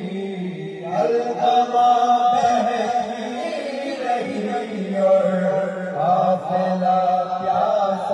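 Noha, a Shia lament, chanted by male voices in slow, held notes, with the crowd of mourners chanting along.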